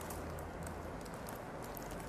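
Quiet room tone with a steady low hum and faint, scattered light rustles from handling.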